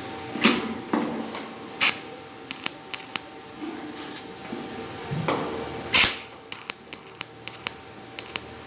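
Capacitor-discharge welder firing onto a stainless steel tank, giving a series of sharp snaps as each filler pin is shot on to close a hole. The loudest snaps come about half a second in and about six seconds in, with smaller clicks between.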